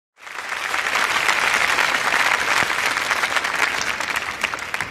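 Concert audience applauding: dense clapping from many hands that starts suddenly and thins into separate claps near the end.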